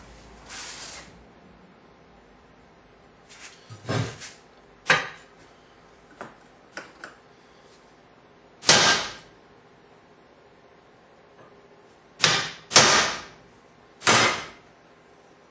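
A series of separate sharp knocks and clanks, about seven, irregularly spaced, from a metal workpiece and tools being handled and struck on a workbench. The loudest come about nine seconds in and in a quick cluster near the end.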